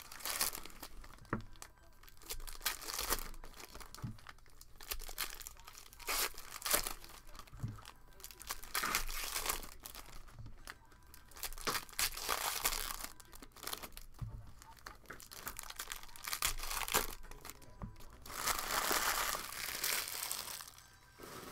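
Foil trading-card pack wrappers crinkling and tearing as packs are ripped open and handled, in repeated bursts, with a longer stretch of crinkling near the end.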